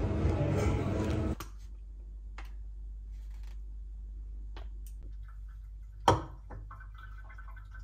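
Café background noise that cuts off about a second and a half in, leaving a low steady hum with a few light clicks and taps from food packs and a glass bowl being handled on a kitchen counter. The loudest is a sharp tap about six seconds in.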